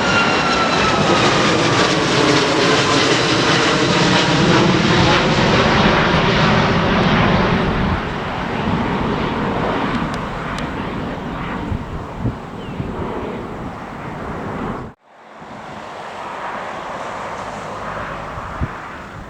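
Airliner passing close with engines running, a whine that falls in pitch over the first few seconds and then slowly fades. It cuts off abruptly about fifteen seconds in, leaving wind buffeting the microphone.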